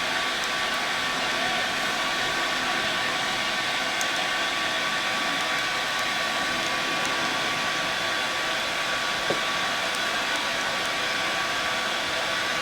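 Steady hiss and thin whine of a small electric motor running without a break.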